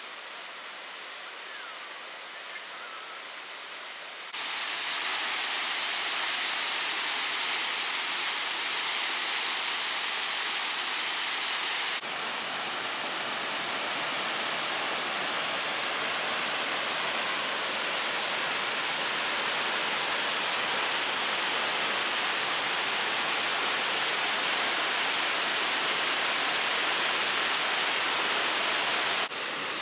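Waterfall rushing: a steady wash of falling water that jumps abruptly louder about four seconds in, then changes abruptly twice more, once partway through and once near the end.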